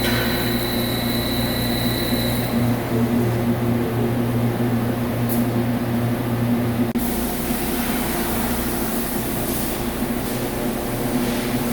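CNC vertical lathe running with a steady machine hum. A faint high whine fades out about two seconds in, and the low hum drops slightly after a short break about seven seconds in.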